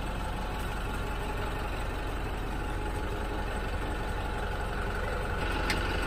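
The Tata 407 minibus's engine idling steadily, a low even rumble heard from inside the coach cabin.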